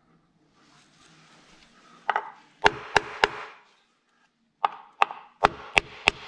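Hammer tapping the timing cover of a BMW N62 V8 to drive it home against the engine block: a handful of sharp metallic taps about two seconds in, then a second run of quicker taps near the end.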